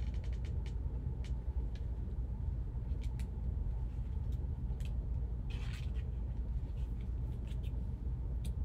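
A steady low background rumble, with scattered light clicks and a brief rustle from trading cards in plastic sleeves being handled and set down by gloved hands.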